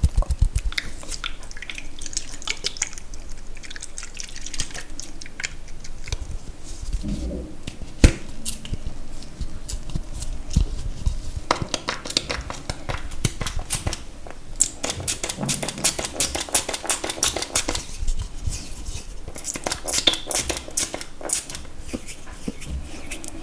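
Close-miked wet, sticky clicking sounds in quick dense runs, with one sharp knock about eight seconds in.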